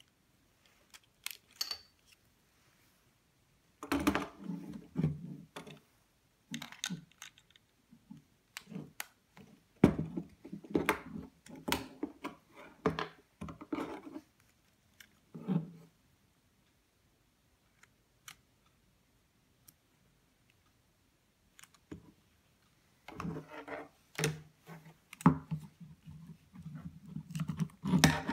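Lego Technic plastic parts clicking and rattling as they are handled and pressed together, in three bursts separated by quiet gaps.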